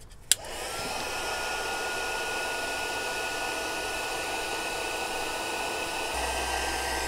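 Handheld heat gun switched on with a click, its fan whine rising to a steady pitch under a constant rush of hot air, running while it shrinks double-wall heat-shrink tubing over a soldered wire joint. It shuts off at the end.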